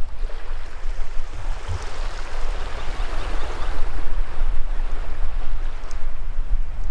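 Shallow surf washing up over sand: a hiss of water that swells to a peak a few seconds in and then ebbs, over a steady low rumble of wind on the microphone.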